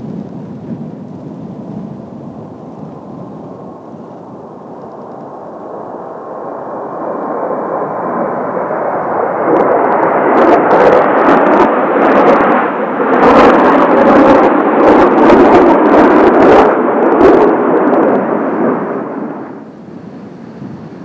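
Kawasaki T-4 jet trainers flying past, the twin-turbofan jet noise with a faint whine building up to a loud rush with sharp cracks, then cutting off suddenly near the end.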